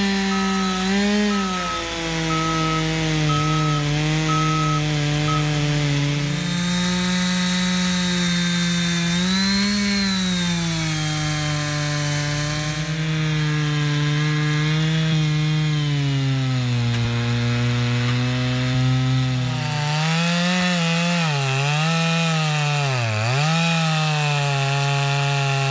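Chainsaw running at full speed as it cuts wood, its engine pitch wavering, then dipping sharply several times near the end as the chain loads up in the cut.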